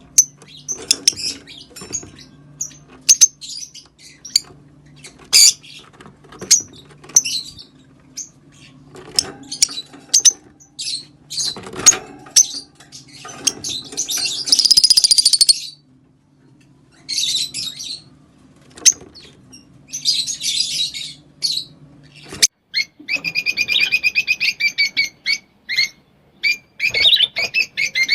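Green Fischer's lovebirds chirping in short, sharp high calls, with a long dense burst of song about halfway through. Near the end comes a fast run of evenly spaced chattering notes, the lovebird's giggling song. A steady low hum lies under the first part and stops a few seconds before the end.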